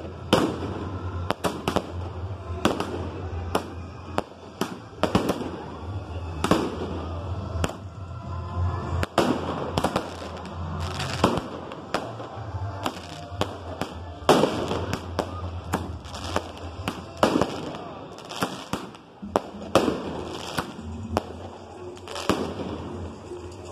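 Aerial fireworks going off in an irregular run of sharp bangs, about one or two a second, each trailing a short crackle and echo, with music playing underneath.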